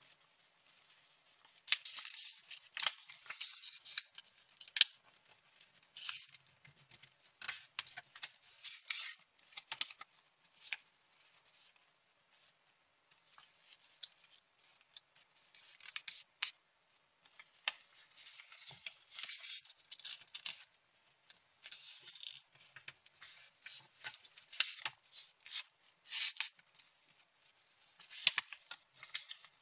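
Sheet of origami paper rustling and crackling as hands fold it and press the creases, in irregular bursts with short pauses.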